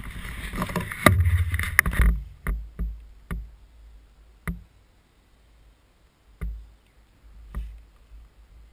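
Handling noise on a GoPro camera mounted on a quadcopter: rubbing and rumbling for about two seconds, then half a dozen separate sharp knocks spread out over the next six seconds.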